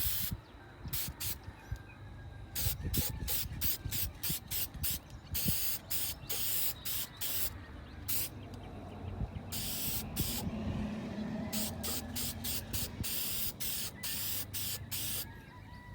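Aerosol can of clear lacquer spraying in many short bursts, a few held for about half a second, as coats of clear go onto a painted magazine.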